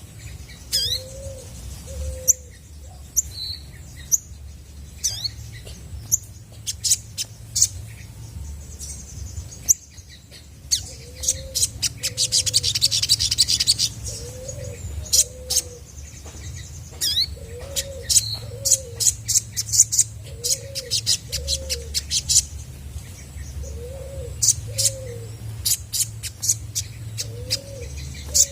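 Olive-backed sunbird singing: sharp, high, quick chirps and cheeps, with a fast rattling trill a little before halfway. Under it, a low two-note call repeats every couple of seconds.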